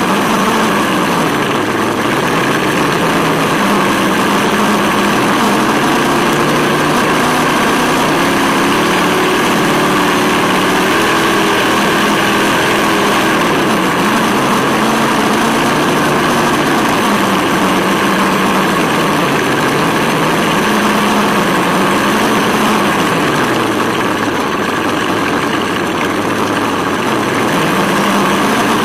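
Sense Hobby ESS-One engine sound simulator playing a V8 engine note through the RC buggy's onboard speaker, its pitch rising and falling again and again with the throttle. A steady rushing noise runs underneath.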